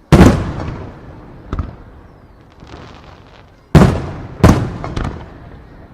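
Aerial fireworks shells bursting overhead: a loud boom just after the start, a smaller one, then two more loud booms close together and a lighter one near the end, each dying away in a long echo.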